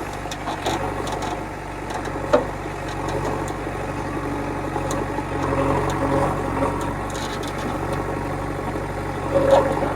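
Diesel engine of heavy machinery running steadily at a low, even speed, with two brief knocks, one about two seconds in and one near the end.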